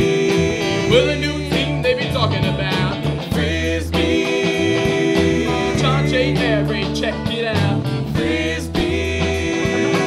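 Rock band music: drum kit, bass guitar and guitars, with long held bass notes and a lead line that bends and wavers in pitch.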